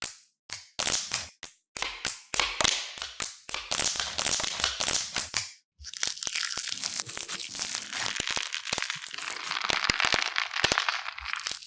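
Crackling and crunching in short bursts with brief gaps, turning into a continuous dense crackle about halfway through.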